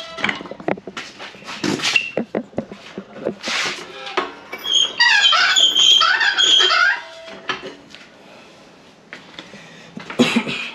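Trolley jack carrying a car differential being rolled across a concrete floor: clattering knocks, then a loud stretch of high, wavering squeaks from about halfway in.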